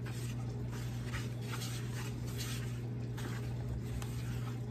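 Wooden spoon stirring a crumbly flour-and-lard tortilla dough in a plastic mixing bowl, soft scraping strokes about twice a second over a steady low hum.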